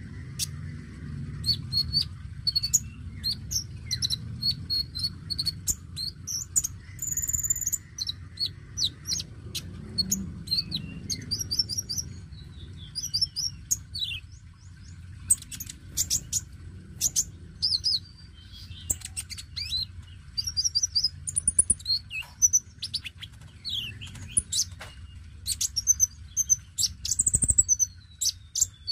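Male Van Hasselt's sunbird (konin) singing a fast, high-pitched twittering song of short chirps and quick trills, phrase after phrase with hardly a pause. A steady low rumble runs underneath.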